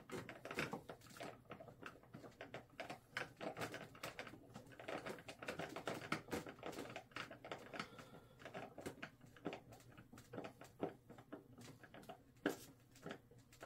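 Irregular small clicks, taps and scrapes of hands and a screwdriver working a screw into the wing of an X-Fly Twin Otter foam RC plane to hold it to the fuselage.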